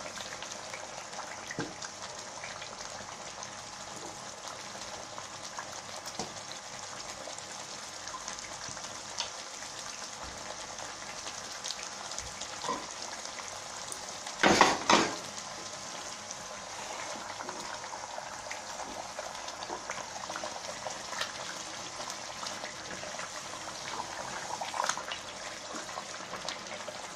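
Masala frying in ghee in a pot with frozen chicken pieces, a steady crackling sizzle. A short loud knock about halfway through, and a wooden spoon stirring near the end.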